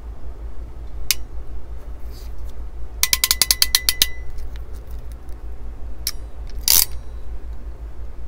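PEX clamp tool tightening a clamp onto a PEX fitting: a single click about a second in, then a quick run of about a dozen ratchet clicks, a click and a louder snap about two-thirds of the way through.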